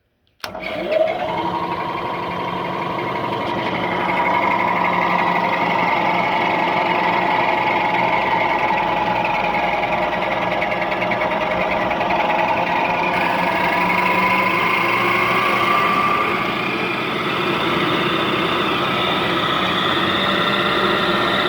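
Lagun FTV-2 vertical milling machine running in its low speed range: the three-phase motor and head start suddenly, a whine rises as they spin up, then they settle into a steady running whine with gear noise.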